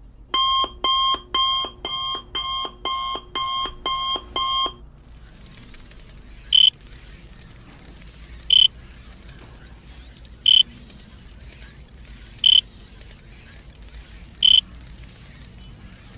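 Electronic alarm-style beeping: a run of about nine rapid beeps, two a second, for the first four and a half seconds, then five short, high single beeps about two seconds apart.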